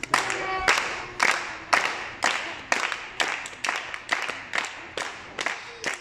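Rhythmic hand clapping in time, about two claps a second and keeping an even beat.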